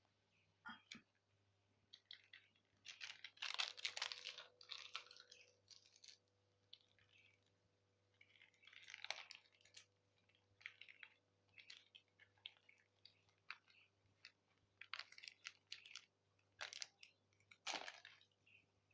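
Faint, scattered rustling and scraping in short bursts, with a few sharp clicks, as Milo chocolate malt powder is added to a small glass bowl.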